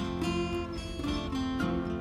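Music: acoustic guitar strumming and picking, with notes struck several times a second and a few sliding notes.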